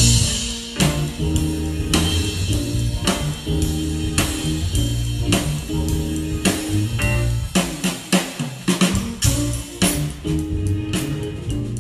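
Live instrumental band of electric guitar, bass guitar, keyboards and drum kit playing a groove, with a walking bass line and steady drum hits. A cymbal splash opens the passage, and the low bass drops out briefly about eight seconds in.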